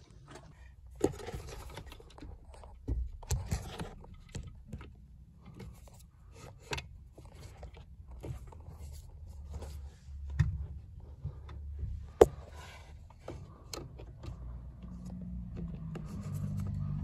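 Hand work on a car's clutch pedal box: pliers and metal parts make scattered clicks, taps and scrapes, with one sharp metallic click about twelve seconds in. A low hum builds near the end.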